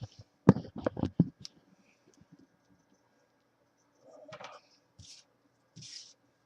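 Objects being handled on a tabletop: several sharp clicks and knocks in quick succession about half a second in, then three short scraping or rustling sounds, spaced about a second apart, in the second half.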